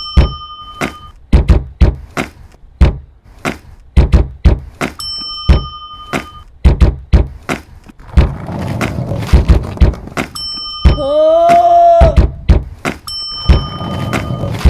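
A rhythmic beat of thuds and knocks, with a bell-like ding coming back every few seconds and a brief pitched tone that bends up and down near the end.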